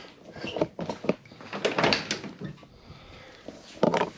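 Scattered knocks, clicks and shuffling of someone moving along a car and reaching down into the driver's footwell, with a denser clatter about two seconds in and a sharper knock near the end.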